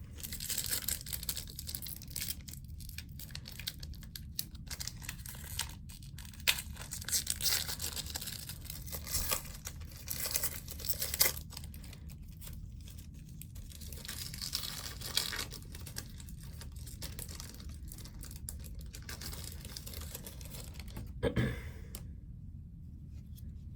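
Hockey card pack wrapper being torn open and crinkled, with cards rustling and shuffling in hand: a long run of irregular crackling and rustling that dies down near the end.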